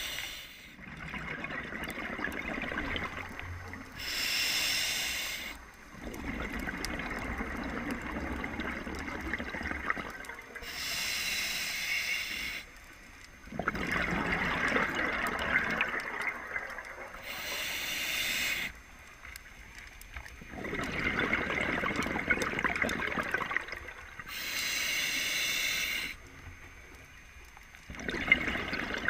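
Scuba diver breathing through a regulator: a short hissing inhale, then a longer rush of exhaled bubbles, repeating about every seven seconds, four breaths in all.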